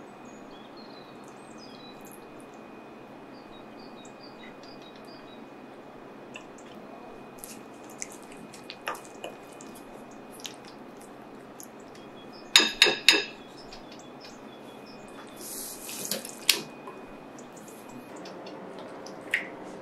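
A utensil stirring a wet spice-and-oil marinade in a glass bowl, with scattered small clicks and scrapes. A little past the middle come three quick ringing clinks of the utensil against the glass, followed a few seconds later by a brief wet rustle.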